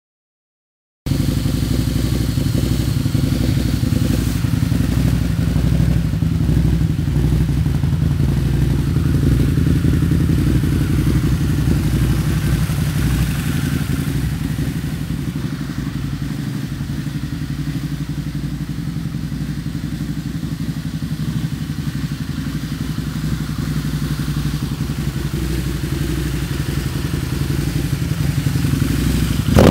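Harley-Davidson V-Rod Muscle's V-twin running steadily through new Vance & Hines Competition slip-on exhaust mufflers, starting about a second in.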